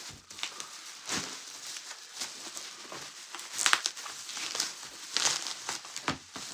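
Plastic bubble wrap crinkling and crackling as it is pulled out of a package and handled, in irregular bursts that are loudest about midway and again about five seconds in.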